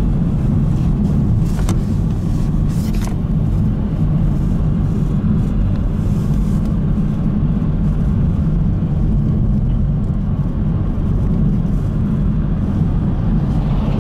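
Steady low rumble of road and engine noise inside a moving car's cabin, with two brief clicks a couple of seconds in.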